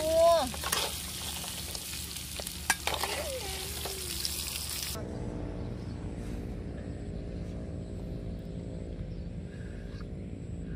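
Water snake pieces sizzling in a hot wok, with a few sharp clicks of stirring. About five seconds in the sizzle cuts off abruptly and a steady low outdoor hum takes its place.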